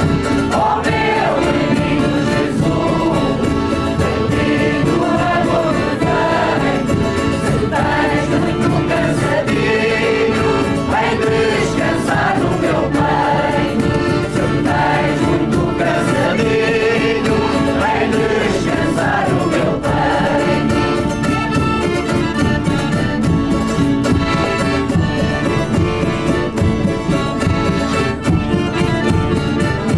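A choir singing together over instrumental accompaniment, at a steady level.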